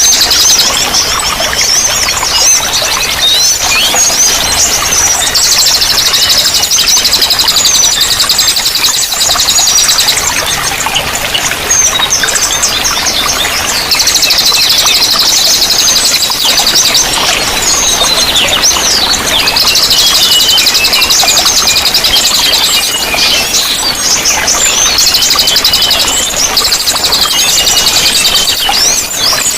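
Several songbirds singing at once: dense chirps and whistles mixed with long, very fast buzzing trills, the trill passages coming and going every few seconds. A steady wash of running water sits beneath the birdsong.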